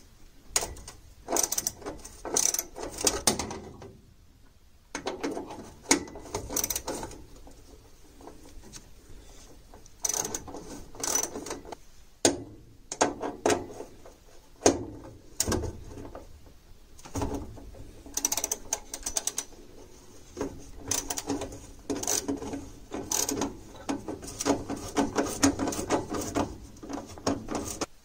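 Small ratchet wrench clicking in repeated runs of rapid clicks with short pauses between them, as the sheet-metal mounting screws of a furnace draft inducer motor are turned out.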